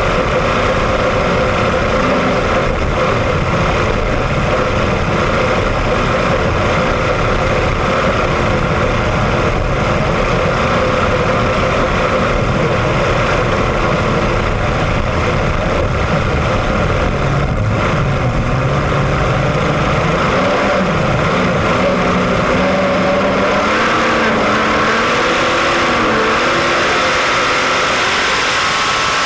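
Racing boat engines running loud and steady, their engine notes wavering and shifting in pitch in the latter part.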